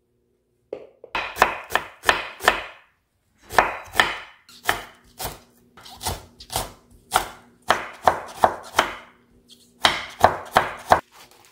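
Kitchen knife chopping on a wooden cutting board, first slicing green onion into rings, then cutting carrot into thin strips. The knocks come in quick runs of several strikes with brief pauses between.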